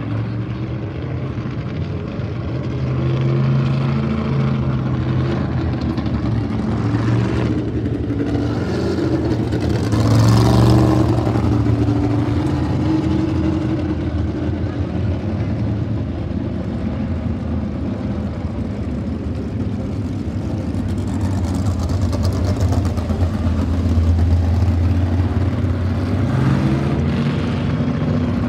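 A field of sprintcars racing around the oval, their engines running hard and rising and falling in pitch as they pass. The sound swells loudest as the pack goes by about ten seconds in, and again near the end.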